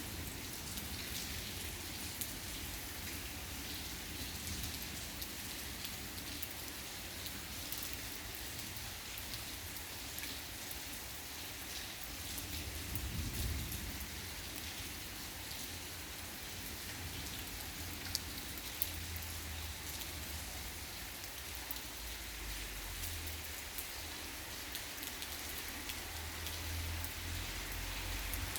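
Steady heavy rain falling and pattering on surfaces during a thunderstorm, with a low rumble about halfway through and again near the end.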